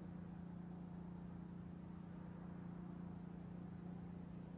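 Steady low background hum with a constant low tone and no other events.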